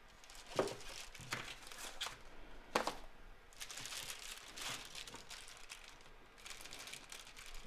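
Packaging being handled and torn open by hand: irregular crinkling and tearing, with a few sharper crackles in the first three seconds.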